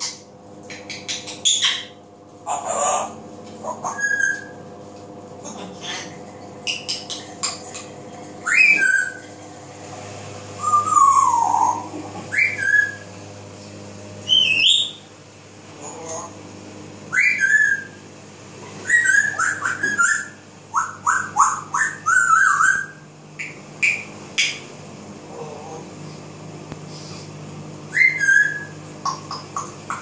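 African grey parrot whistling and calling: a long series of separate short whistles and calls, many sliding up or down in pitch, with quick runs of short repeated notes, over a steady low hum.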